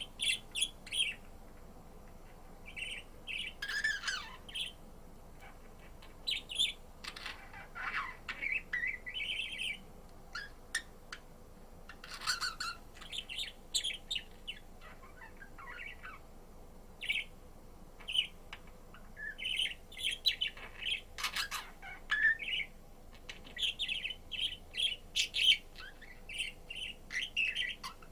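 Pet budgerigar chirping and chattering in irregular short bursts and warbling phrases, with a few sharper, louder calls.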